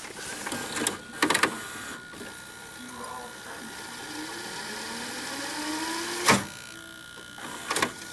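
VHS VCR rewinding a tape: the mechanism clicks, then the rewind whine rises steadily in pitch for about three seconds and ends in a sharp clunk about six seconds in, with a few more clicks near the end. A thin steady high tone runs underneath.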